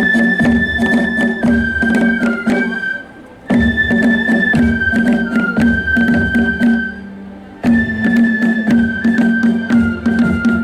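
Yosakoi dance music played over loudspeakers: long held high melody notes over a low drone, with frequent sharp percussive strikes. The music breaks off briefly about three seconds in and again around seven and a half seconds in, then restarts.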